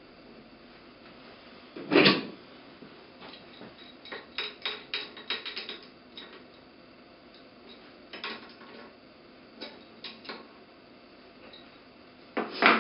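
Hand tools tightening nuts on a bolt of a turbine's guide-vane adjustment mechanism, making metal clicks and clanks. There is a loud clank about two seconds in, then a quick run of light clicks. Scattered clicks follow, and another loud clank comes near the end.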